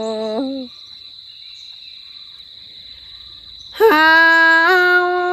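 A woman singing solo in Thái folk style with long, steady held notes. One note ends under a second in, then for about three seconds there is only a steady high insect drone. A new long held note starts near the end, scooping up into pitch.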